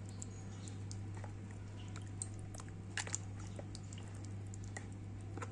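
Hands squishing and rubbing a raw beef steak in a thin liquid marinade: faint, irregular wet squelches and small clicks, a few louder ones about three seconds in, over a steady low hum.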